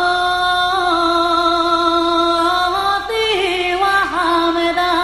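A woman singing, holding one long note for about three seconds, then moving through a wavering, ornamented line.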